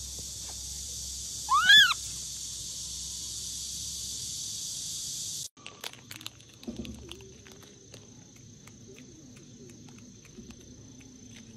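Steady high-pitched insect buzz with one short, loud animal call that rises and falls in pitch about a second and a half in. The buzz cuts off abruptly about five and a half seconds in, leaving quieter outdoor ambience with faint clicks.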